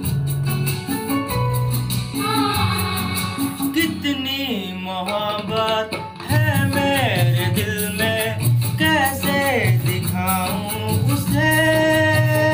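Bollywood film song: a singing voice over instrumental accompaniment.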